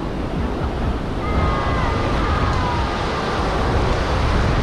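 Steady roar of surf and wind, the wind buffeting the microphone. Faint distant voices drift through the middle.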